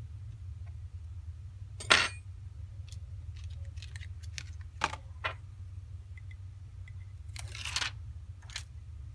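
Small metal tools and phone parts clicking and clinking against a work surface during an iPhone 6 teardown: a sharp clink about two seconds in, a few lighter clicks, and a longer rattle near the end, over a steady low hum.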